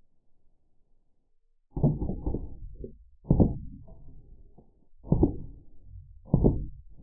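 Slowed-down shots of a Drozd Blackbird CO2 BB machine gun, heard as deep, dull thumps that each trail off. The first two come close together about two seconds in, then single thumps follow about every second and a half.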